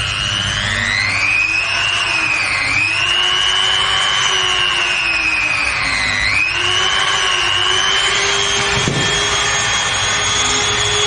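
Electric rotary grinder's motor running with a high whine, its new bearings fitted. The pitch sags and recovers twice as the speed changes, then holds steady. The speed changes may come from adjusting the speed or from brief loading. It runs smoothly, without the earlier abnormal noise.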